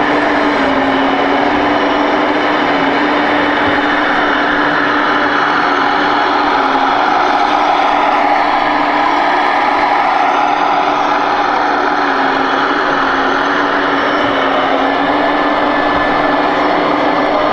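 Scale RC excavator's sound module playing a diesel engine running steadily. The engine tone drops back in the middle and returns stronger near the end as the machine works its arm.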